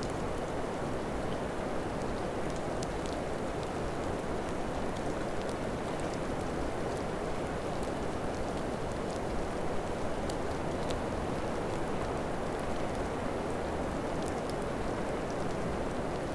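Steady rain: an even hiss with scattered drops ticking.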